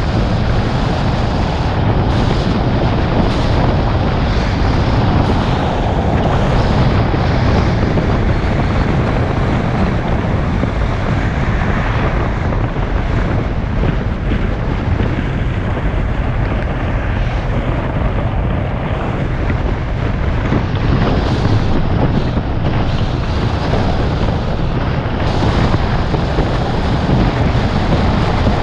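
Car driving along a road: a steady rush of wind buffeting the microphone over a low road and tyre rumble.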